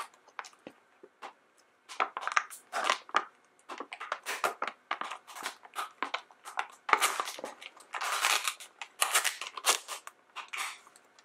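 A Num Noms blind bag's packaging crinkling and tearing as it is pulled open by hand, starting about two seconds in as irregular bursts of crackling with short pauses between them.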